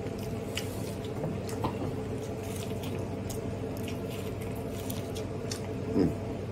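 A man biting into and chewing Mexican street corn on the cob: wet, clicky mouth and chewing sounds scattered throughout, with a brief hummed murmur about six seconds in.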